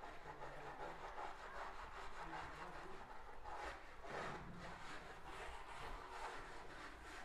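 Faint handling noise of small plastic slime tubs being opened and slime being pulled and stretched by hand: soft rubbing and rustling.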